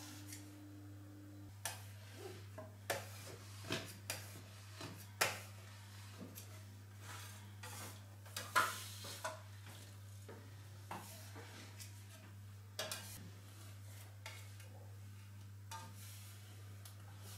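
Metal bench scraper sliding over a granite countertop, lifting set chocolate off the stone in curls: irregular short scrapes and clicks, some a little louder than others.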